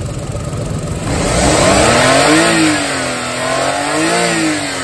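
Suzuki K6A three-cylinder engine idling, then revved by hand at the throttle body. The pitch climbs, dips slightly, peaks a second time about four seconds in, and starts falling back toward idle. The owner finds it strong and free of vibration or odd noises.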